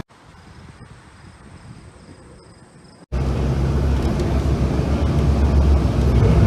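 Faint ticks against quiet background noise, then about three seconds in an abrupt cut to a loud, deep, steady rumble of aircraft engine noise that grows slightly louder.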